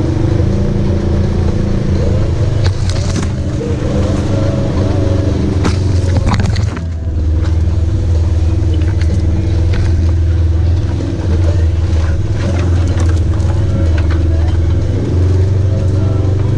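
Polaris RZR side-by-side engine running steadily at low trail speed, easing off briefly about seven seconds in. A few sharp knocks and scrapes come around three and six seconds in as the machine pushes through brush on the rough trail.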